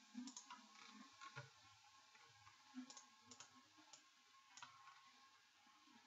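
Faint clicks of a computer mouse, a handful scattered at irregular intervals over near silence.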